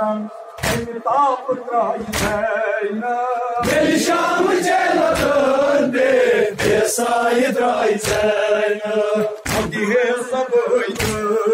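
Group of men chanting a noha, a Shia lament, in unison, with a sharp slap of many hands beating their chests together about every second and a half, keeping time with the chant.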